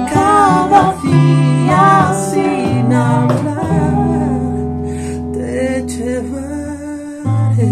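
Acoustic guitar band music with wordless singing and harmonica over sustained low chords. The chord changes shortly before the end.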